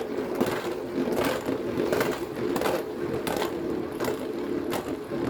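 Beyblade X spinning tops whirring steadily in a stadium, with sharp clacks about every three-quarters of a second as the tops strike each other or the stadium wall.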